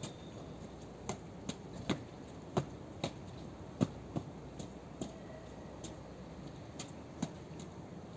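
ЭП2Д electric train standing at a platform, with a faint steady background and irregular sharp ticks and clicks, roughly one or two a second.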